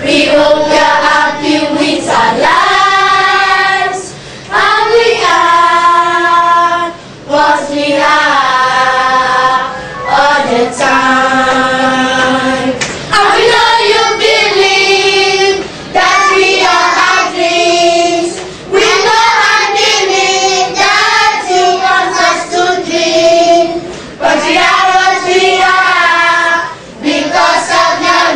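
A group of children singing together as a choir, in sung phrases of a couple of seconds with brief breaks between them.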